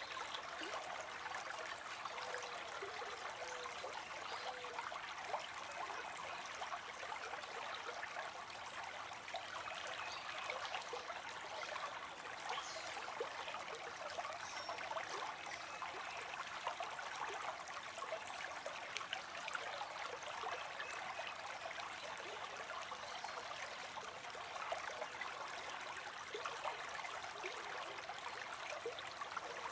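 River water flowing steadily over stones with a continuous babbling rush, and faint bird calls now and then.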